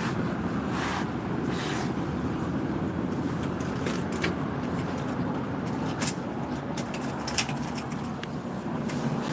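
Steady low rumble of outdoor background noise with scattered light scrapes and taps. Two sharper clicks stand out about six and seven seconds in.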